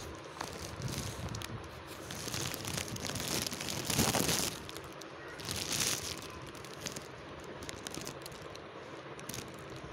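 Polythene pack of roasted clay chunks crinkling as it is handled, with a louder surge of rustling about four seconds in and another around six seconds.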